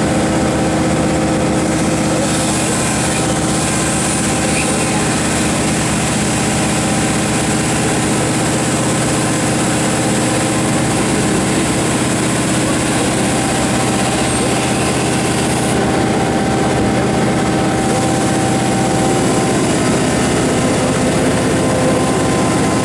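Komatsu PC4000-11 mining excavator's large diesel engine running at a steady speed: a loud, even hum of several tones that holds its pitch throughout.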